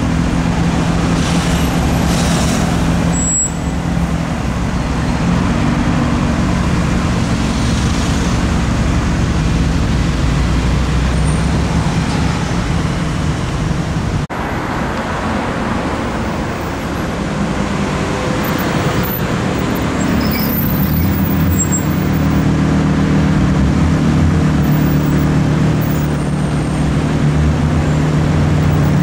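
Performance car engines idling in slow street traffic, a steady low drone. First comes a Nissan GT-R's twin-turbo V6, then, after a short break about halfway through, a Lamborghini Huracán's V10.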